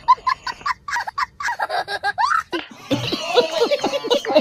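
Men laughing: short bursts of chuckling at first, then, about three seconds in, several men laughing together.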